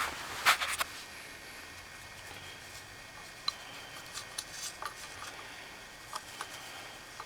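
Hand-tool work on a motorcycle wheel: a short rustling clatter in the first second, then scattered light clicks and taps.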